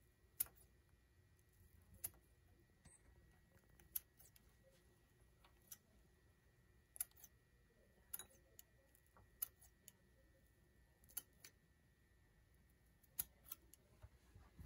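Kitchen scissors snipping a fresh chili pepper into small pieces: sharp, separate snips about every one to two seconds, with near quiet between them.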